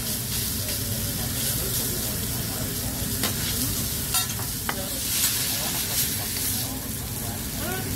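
Shrimp and noodles sizzling on a hot hibachi steel griddle, a steady frying hiss. A few sharp metal clicks from the chef's spatula and lid on the griddle sound over it.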